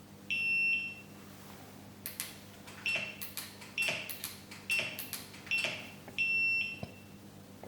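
Segway Ninebot F-series electric scooter's buzzer beeping, its volume lowered by electrical tape over the buzzer. A long high beep, then four short beeps with small clicks between them, then another long beep near the end.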